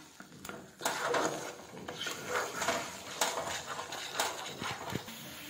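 Wooden spatula stirring and scraping a thick amla, sugar and cornflour paste around a kadhai, in irregular strokes with an occasional knock against the pan. The paste is being cooked on low-to-medium heat and stirred continuously to keep lumps from forming.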